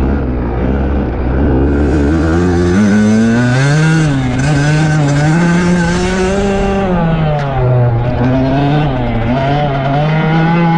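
Dirt bike engine under throttle: it runs low and steady for about three seconds, then the revs climb and swing up and down over and over as the rider works the throttle.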